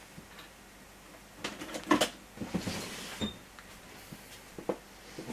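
Household clunks and rustling of someone rummaging, several knocks with the loudest about two seconds in, and a brief high beep just after three seconds.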